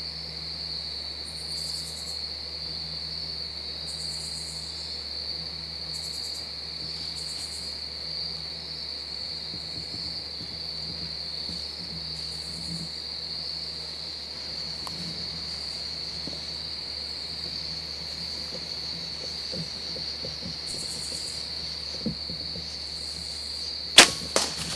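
Steady high chirring of crickets, then near the end a sharp, loud snap of a bow being shot, followed by a few quicker knocks.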